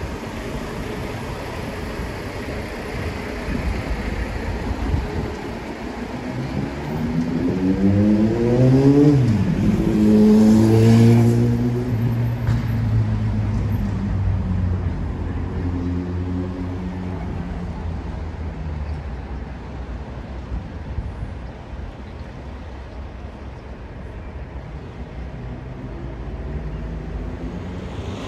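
Street traffic with a motor vehicle accelerating nearby: its engine note rises, drops sharply at a gear change about nine seconds in, is loudest just after, then falls away and fades. Another engine rises near the end over a steady traffic rumble.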